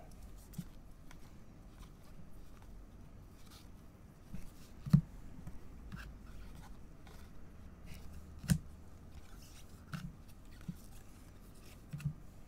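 Trading cards being handled in gloved hands: faint rubbing as cards slide over one another, with scattered small card-on-card ticks. The sharpest clicks come about five and eight and a half seconds in.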